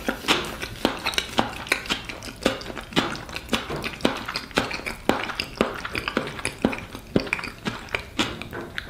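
Close-up chewing of a mouthful of caviar-stuffed egg: a run of wet mouth clicks and smacks, about three a second.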